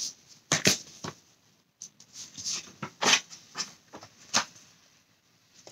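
Picture book being handled: a series of short paper rustles and soft knocks as the pages are turned and the book is moved, about seven or eight sounds spread unevenly.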